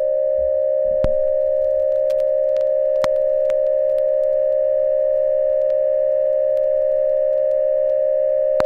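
A single steady electronic tone held at one pitch, the buzz of a mock Emergency Alert System broadcast, with a few faint clicks beneath it.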